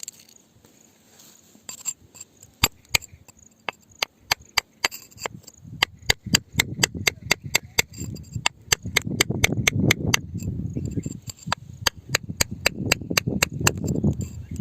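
Rapid, repeated sharp strikes of a hand tool on rock, starting a few seconds in and running at about three a second, with a low scraping rumble under them in the second half.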